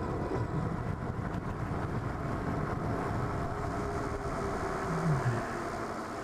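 Steady riding noise from a Super73 S2 electric bike under way: a dense rush of wind and road noise on the microphone, with a short low falling tone about five seconds in.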